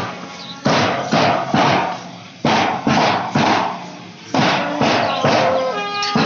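Marching drum beaten in a steady rhythm, about two strokes a second.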